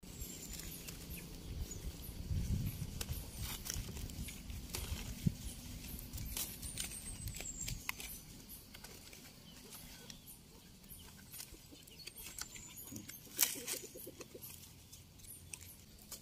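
Dry leaves and twigs crackling and rustling as a young cashew seedling is handled, over a low wind rumble. Three times a thin, high, falling call comes from the chickens foraging close by, and a short rapid run of pulses sounds near the end.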